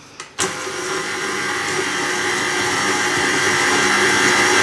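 KitchenAid Artisan stand mixer switching on with a click about half a second in, then running steadily with its wire whisk and growing slightly louder as it beats egg yolks into sugar.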